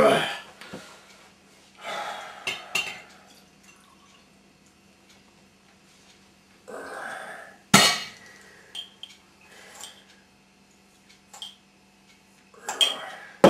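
Coffee poured from a stainless steel pot into a ceramic mug. The pot is set down with one sharp knock, then a spoon clinks lightly against the mug a few times. A man's burp trails off at the very start.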